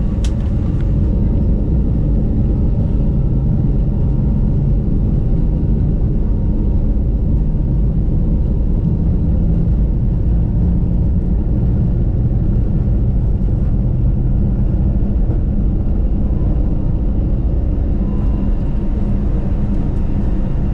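Airbus A321LR airliner heard from inside the cabin: a loud, steady deep rumble of engines and airflow during the takeoff.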